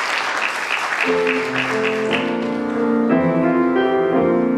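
Applause dies away over the first two seconds while a piano begins about a second in, playing held chords as an introduction.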